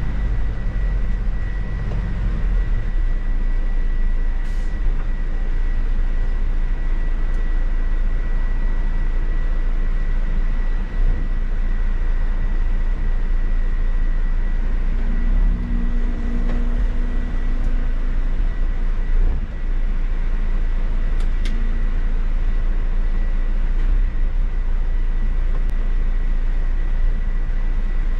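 Mercedes-Benz city bus driving, heard from the driver's cab: steady engine and road rumble with a thin high whine.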